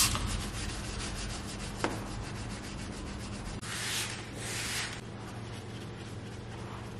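A clay bar rubbed back and forth over wet, lubricated car paint, a fine scraping friction of paint decontamination. A trigger spray bottle hisses out clay lubricant briefly at the start and again for about a second around four seconds in.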